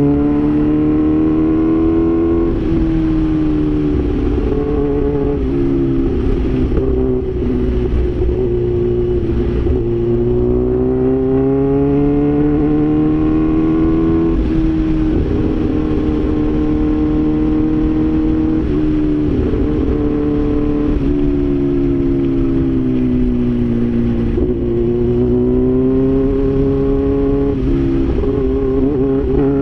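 Kawasaki H2 Carbon's supercharged 998 cc inline-four engine running under way. Its pitch climbs slowly and drops back several times, with a few sudden steps in pitch.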